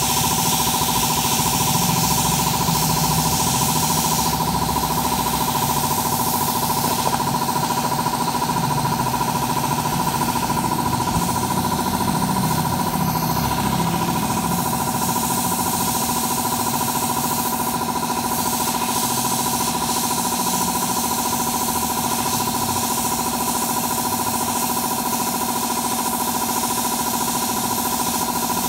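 A small electric tool motor running steadily, with a constant whine that does not change in pitch.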